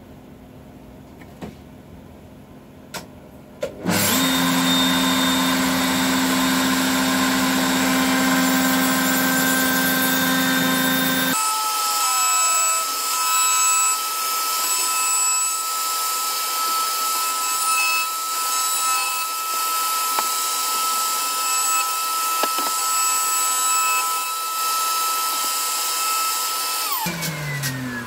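A router in a router table starts up suddenly about four seconds in, after a couple of light knocks. It runs at a steady high whine while its bearing-guided flush-trim cutter trims the wood of a guitar body along a template. Near the end it is switched off and winds down, its pitch falling.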